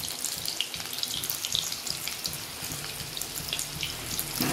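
Batter-coated cauliflower florets deep-frying in hot oil: a steady sizzle dotted with many small crackling pops.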